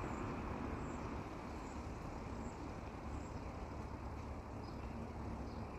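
Steady outdoor street ambience: an even, low rumble of road traffic with no distinct events.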